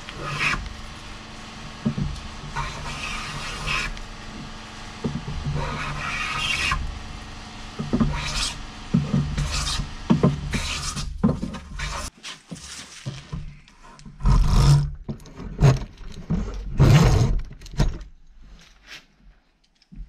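Hand plane shaving a wooden handrail in repeated rasping strokes, each about a second long, with a few louder, heavier strokes in the second half.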